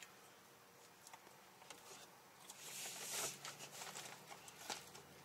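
Quiet close-up eating sounds: faint mouth clicks and smacks of chewing, with a brief soft rustle about two and a half seconds in and a sharper click near the end.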